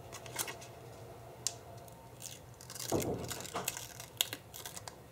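Paper and sticker handling: light rustles and small taps, with a longer rustle about three seconds in as a flower sticker is peeled from its backing sheet.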